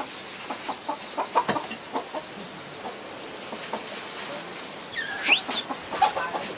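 Animal calls: a run of short, clucking calls, then a single shrill call that sweeps sharply upward in pitch about five seconds in.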